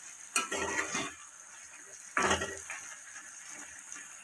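Metal spatula stirring okra simmering in a thin gravy in a pan: two wet stirring strokes about two seconds apart, over a faint steady simmering hiss.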